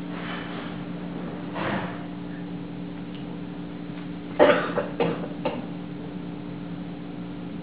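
A person coughing, a short cluster of three or four coughs a little past halfway, with a softer one earlier, over a steady low hum in the room.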